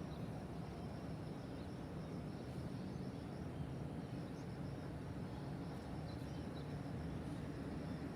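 Steady low hum of distant city traffic, with a few faint bird chirps high above it.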